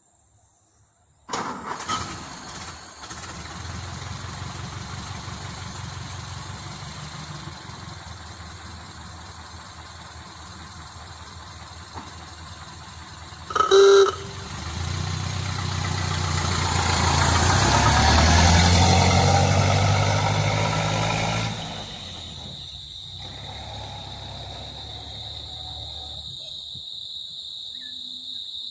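1931 Ford Model A's four-cylinder flathead engine starting about a second in with a few sharp clicks and settling to a steady idle. About fourteen seconds in there is a short horn blast. The engine is then revved, rising to a peak and falling back to idle several seconds later.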